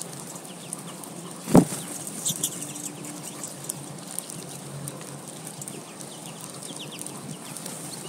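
American goldfinches at a seed feeder: a single loud thump about one and a half seconds in as a bird lands on the feeder tray, with fine clicking of seed pecking and a few short high chirps after it.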